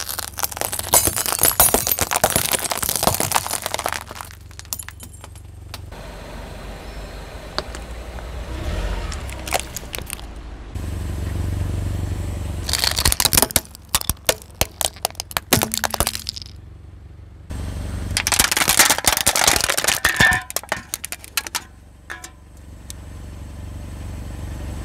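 A car tyre rolling over small objects and crushing them: coloured glass light bulbs crunching and shattering, then plastic pencil sharpeners cracking. There are several long stretches of dense crackling and snapping, with quieter gaps in between that hold scattered clicks and a low rumble.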